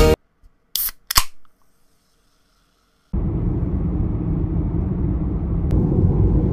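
Two short sharp clicks about half a second apart, then silence. About three seconds in, the steady low rumble of road and tyre noise inside a car driving along a motorway begins.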